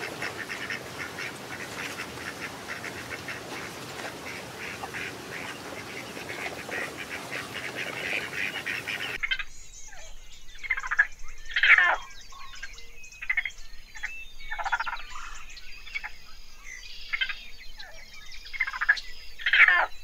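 Animal calls: for about nine seconds a dense chorus of rapid, pulsing calls, then an abrupt change to a run of short, separate calls, about a dozen of them, some of them loud.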